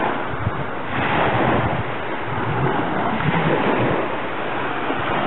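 Small waves washing up and breaking on a sandy shore, a steady surf hiss, with wind buffeting the microphone.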